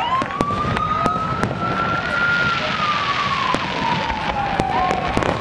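A siren wails, rising slowly in pitch over a couple of seconds and then falling again, over the sharp pops and crackles of fireworks bursting.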